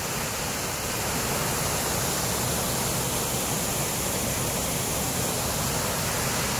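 A river pouring over a small waterfall into a pool: a steady, even rush of water.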